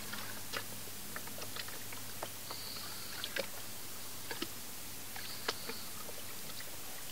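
Water sloshing and splashing as a plastic gold pan is dipped and tilted in a tub of water, washing the lighter sand out over its riffles. Scattered small splashes and clicks sound over a steady hiss.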